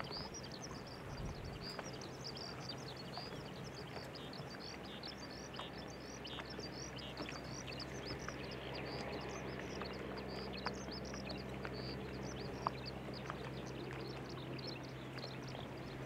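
Continuous rapid chirping birdsong over the steady low drone of a taxiing Boeing 767-300's jet engines at idle. The drone grows stronger about halfway through.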